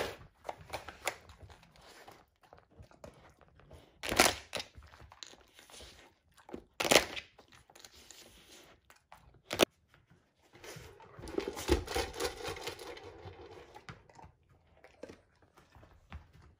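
A dog works a plastic sliding-tile treat puzzle with its nose, knocking and pushing the tiles. There are scattered sharp plastic clacks, three of them louder than the rest, and a longer stretch of scraping and rustling about two-thirds of the way through.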